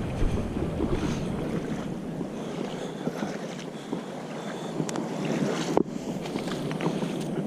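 Ocean surf washing at the shoreline, with wind buffeting the microphone.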